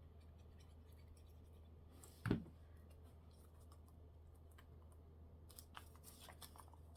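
Quiet handling of paper while gluing a piece on: faint scattered clicks and scratches, with one brief louder sound about two seconds in, over a low steady hum.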